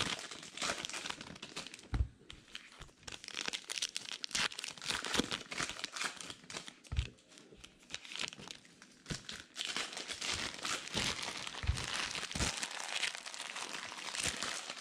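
Foil baseball card pack wrappers crinkling and tearing as packs are opened and cards handled: a dense run of small sharp crackles and clicks, with a few soft thumps.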